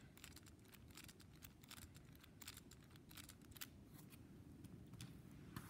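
Faint, irregular plastic clicking of a vintage Kenner Super Powers Green Lantern action figure as its legs are squeezed to work the Power Action ring-thrust arm.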